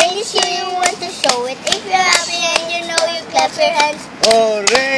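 A child singing a nursery song, with sharp hand claps between the sung phrases.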